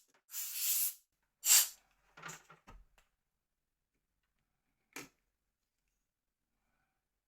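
Small hand-handling noises while a phone is being reassembled: three short hissing rustles in the first two seconds, the third the loudest, then a few light clicks and a single tap about five seconds in.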